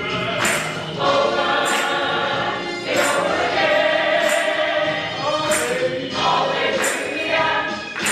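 Gospel choir singing held chords, with a percussion hit roughly every second or so.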